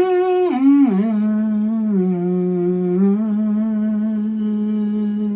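A single voice hums or sings a few notes stepping downward, then holds one long low note with a slight waver.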